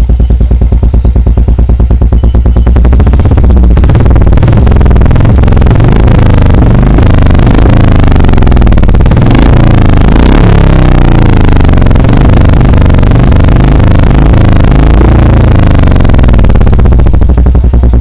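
Royal Enfield Bullet 350 single-cylinder engine running through a black aftermarket silencer packed with ceramic wool, recorded close to the tailpipe. It starts at an even thumping idle, is revved up and down several times in the middle, and settles back to idle near the end.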